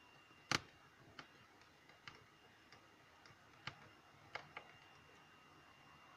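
Sparse small clicks and taps, about six of them, the loudest about half a second in, from the parts of a Samsung Galaxy Note 8 being handled as it is taken apart.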